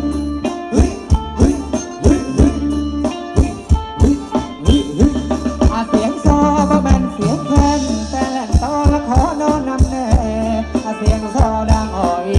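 Thai ramwong dance music from a live band, with a fast, steady drum beat and percussion. A wavering melody line comes to the fore about six seconds in.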